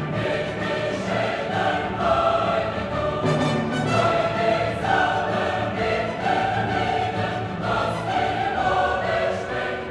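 Background music: a choir singing with an orchestra, in classical style.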